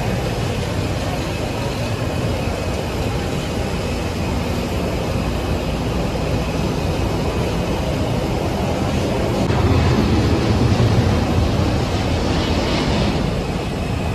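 Steady airport apron noise: vehicle engines and running jet aircraft mixed into a continuous rumble and hiss, swelling louder for a few seconds past the middle.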